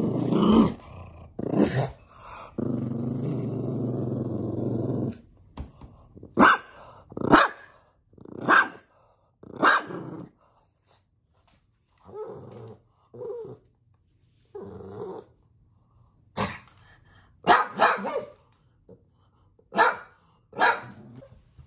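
Pug growling steadily for a couple of seconds, then giving about nine short, sharp barks, with quieter grumbling sounds between them.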